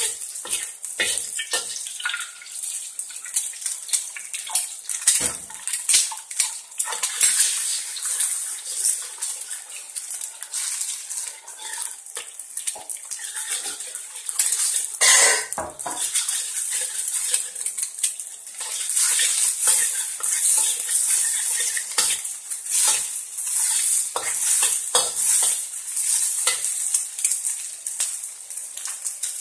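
Food sizzling in hot oil in a stainless steel wok, with a metal spatula scraping and clinking against the pan as the ingredients are stirred. There is a louder clatter of metal on the pan about halfway through.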